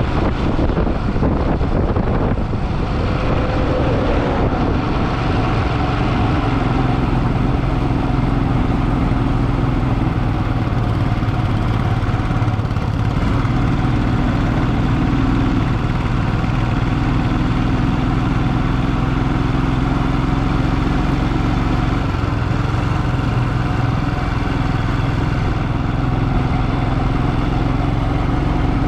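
Motorcycle engine running at a steady, even speed while riding, with road noise underneath.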